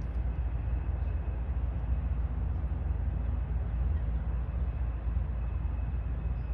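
Steady low rumble of outdoor background noise with no distinct events, and a faint thin steady tone above it.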